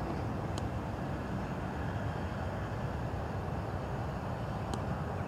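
Distant Boeing 787 Dreamliner's twin jet engines at takeoff power during the takeoff roll: a steady low rumble. Two short, faint high ticks come about half a second in and near the end.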